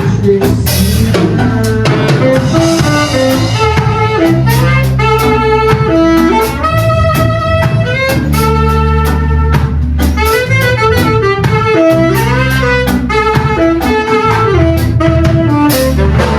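Instrumental break in an upbeat band song: a horn melody over drum kit and bass, with no singing.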